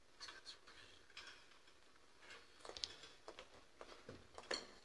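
Near silence: faint room tone with scattered soft clicks and rustles, one slightly louder click near the end.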